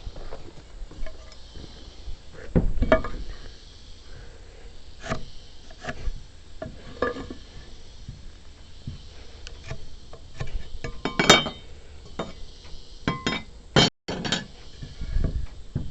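Wooden boards and hand tools being handled: irregular knocks, taps and clinks with no steady rhythm. The loudest is a ringing clink about eleven seconds in. A steady high hiss runs underneath.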